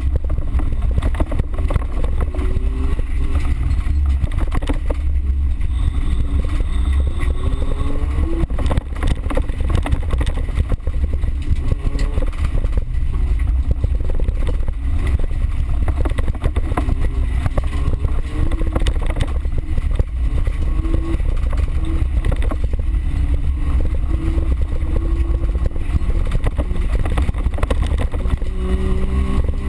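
Small car's engine heard from inside the cabin while racing on a dirt course, its pitch rising and falling as the driver works the throttle, over a heavy low rumble from the rough ground, with frequent knocks from the car bouncing.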